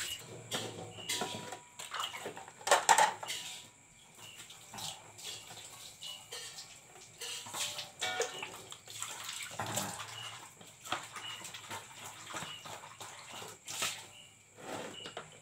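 Water poured from a plastic dipper, splashing over dishes and into a bucket, with plates and bowls clinking as they are rinsed by hand. The splashes come irregularly, loudest about three seconds in.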